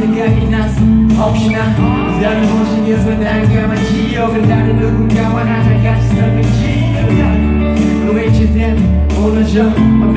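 Live pop concert music: a male vocalist singing into a microphone over the band's backing track, with steady sustained bass notes, recorded from among the arena audience.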